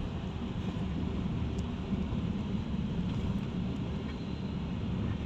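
Steady low rumble of a running vehicle, with no other sound standing out.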